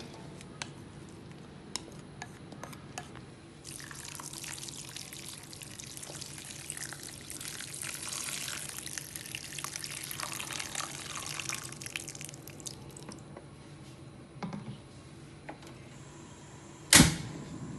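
Tap water running into a metal wok of diced fermented bamboo shoots for about nine seconds, filling it to boil them, after a few light clicks at the start. One loud sharp knock near the end.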